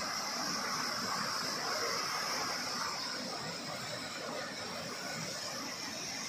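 Mountain stream cascading over boulders: a steady, even rush of water, with a constant high hiss above it.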